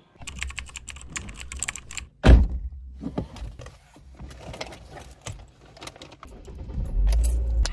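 Small clicks and rattles of someone settling into a car's driver's seat and handling the seat belt, with one heavy thump a little over two seconds in. A low rumble grows louder near the end.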